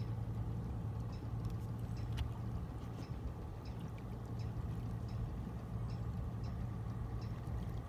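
Water sloshing and trickling around a person wading waist-deep and working a hand net through the water, over a steady low hum, with scattered faint ticks.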